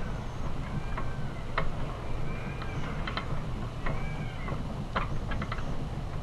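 HP 106 hot tapping machine's boring bar being turned by hand, its metal parts giving short clicks and squeaks that rise and fall in pitch about every second and a half, over a steady low hum.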